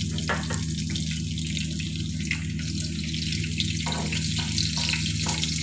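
Hot oil in a kadai sizzling steadily as cumin seeds, black peppercorns, fenugreek seeds and green chillies fry in it for a tempering, with scattered small crackles and pops. A steady low hum runs underneath.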